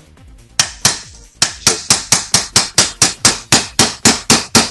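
Small brass-headed hammer tapping a thin pin punch to drive a retaining pin out of an airsoft rifle's barrel assembly. Two single taps, then a quick, even run of sharp taps at about four or five a second.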